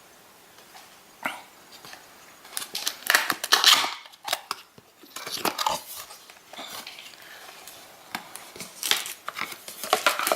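Packaging being handled: irregular rustling and crinkling of plastic and paper, with scattered clicks and taps, loudest in clusters about three seconds in and again near the end.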